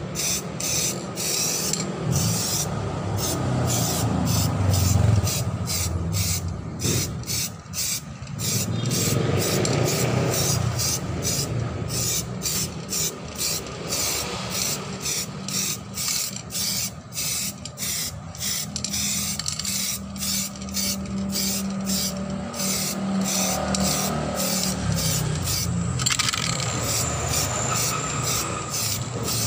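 Samurai aerosol spray can of primer hissing in quick short spurts, about two a second, with wind rumbling on the microphone.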